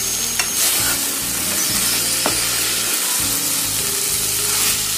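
Okra pieces in masala sizzling steadily in a kadai while a spatula stirs them, with a couple of light scrapes of the spatula. The okra is still cooking in the little liquid left in the pan and is not yet done.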